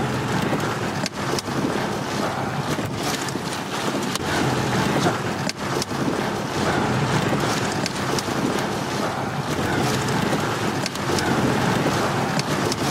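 Strong inflow wind of a nearby tornado rushing over the microphone, a steady loud wind noise broken by scattered sharp ticks and knocks.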